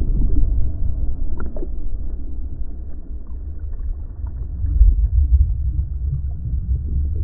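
Low, muffled rumble of breaking surf churning over a shallow sandy bottom, heard underwater, with a few faint ticks. It swells briefly about five seconds in.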